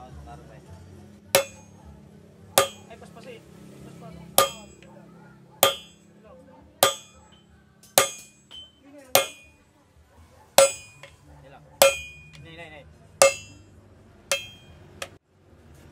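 A blacksmith's striker hammers a red-hot steel bar on an anvil, about eleven blows roughly one every second and a bit, each with a short metallic ring. This is the start of splitting the steel for a machete blade.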